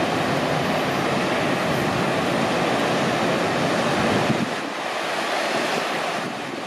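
Steady rushing noise of wind and moving water on the canal bank, with no engine tone standing out. About four and a half seconds in, the deep part of the rush drops away and it gets a little quieter.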